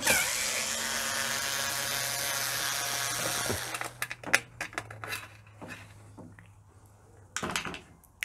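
Cordless electric screwdriver with a Torx T15 bit running steadily for about three and a half seconds as it backs out a screw from a dishwasher's lower panel, its pitch dropping as it stops. A few light clicks follow.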